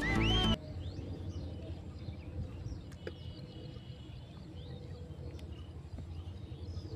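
Background music cuts off about half a second in, leaving outdoor ambience: a steady low rumble with faint, scattered bird chirps.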